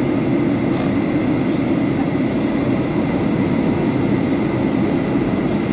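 Steady cabin noise of a passenger airliner in flight, heard from inside the cabin: a constant engine and airflow drone, with a faint steady high tone above it.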